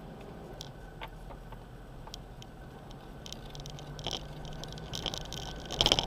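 Off-road 4x4 driving slowly up a rough, stony dirt track: a steady low engine drone with scattered clicks and rattles over the stones, growing busier and louder near the end.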